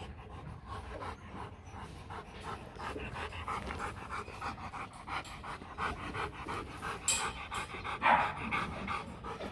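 Rottweiler panting rapidly in a quick, even rhythm of short breaths. About eight seconds in there is one louder, sharp burst of noise.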